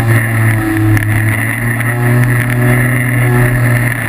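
Electric motors and propellers of a Skywalker RC camera plane running steadily, a loud even drone.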